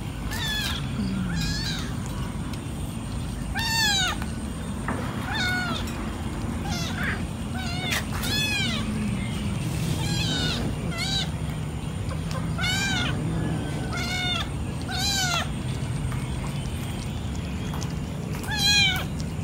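A group of domestic cats meowing again and again around a shared tray of fish, short calls each rising and falling in pitch, about one a second, the loudest near the end, over a steady low background rumble.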